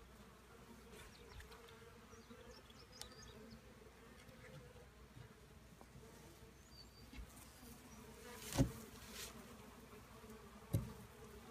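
Faint steady hum of honeybees at an open hive, with one sharp knock about eight and a half seconds in and a smaller knock near the end.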